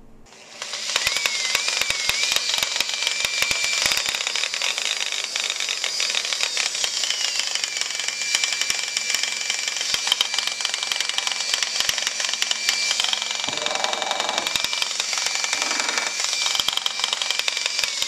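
Makita 9227C electric polisher running real loud with a harsh, clattering grinding over its motor whine, starting about half a second in; it almost sounds like rocks tumbling inside. The noise comes from the gear head, where the bevel gear has chewed-up teeth.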